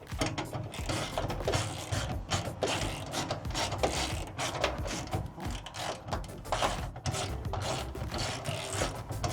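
Hand ratchet clicking in quick, uneven runs while undoing the screws that hold a van's bulkhead.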